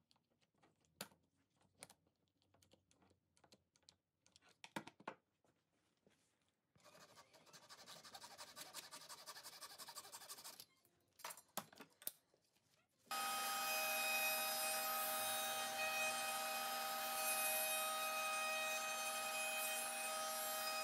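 Quick-grip bar clamps clicking as they are ratcheted tight, then a fine-toothed hand saw sawing with quick strokes for about four seconds, a few knocks, and from about halfway on a trim router running steadily in a router table, much the loudest part, with a steady whine.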